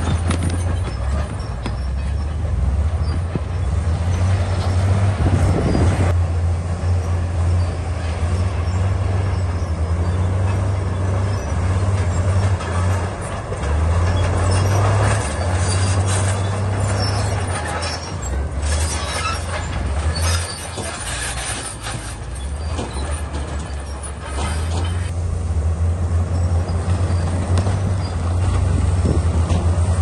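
Komatsu D68E crawler bulldozer working: its diesel engine runs under changing load, rising and falling, easing for a few seconds past the middle and picking up again near the end, over a constant clatter and squeal of its steel tracks as it pushes rock and soil.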